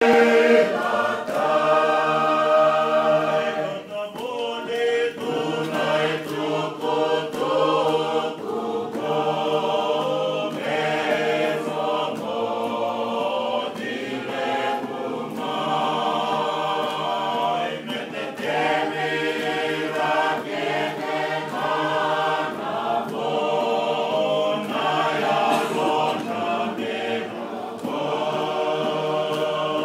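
A group of people singing together in harmony, holding long notes in phrases a few seconds long with short breaks between them.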